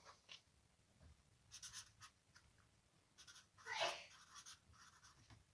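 Sharpie felt-tip marker writing on a sheet of paper: faint, short scratchy strokes as the letters are drawn, the loudest a little before the end.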